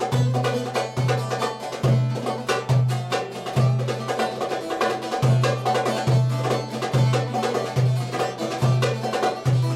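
Turkish folk music on bağlama, its plucked strings running over a goblet drum (darbuka) that sounds a deep stroke just over once a second.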